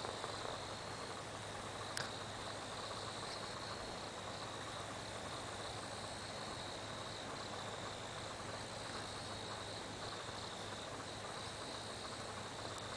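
Insects chirping steadily in a high, continuous trill over a low hiss and hum, with one sharp click about two seconds in.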